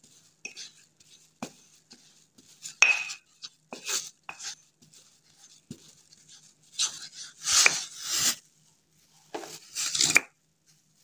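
Pestle grinding and scraping a gritty powder around the inside of a mortar, in irregular grating strokes. The longest and loudest stretch comes a little past the middle, and another comes near the end.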